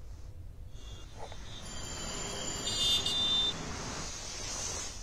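Road traffic noise, a low rumble with a hiss that swells in the middle, with a short high-pitched tone about three seconds in.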